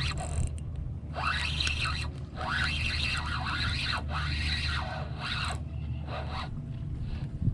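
Spinning fishing reel whirring in five or six bursts of cranking, each rising and falling in pitch, as a fish is reeled in.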